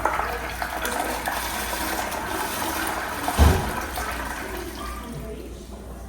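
Toto flush running: water rushing through the bowl and draining away, slowly dying down, with a short dull thump about three and a half seconds in.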